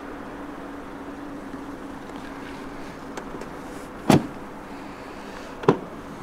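Two sharp thumps of a Lada Granta's car doors being shut, the second about a second and a half after the first, over a steady low hum.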